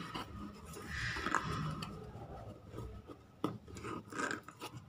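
Cardboard shipping box being handled and pried open by hand: the cardboard rubs and scrapes, with scattered small knocks and a sharp click about three and a half seconds in.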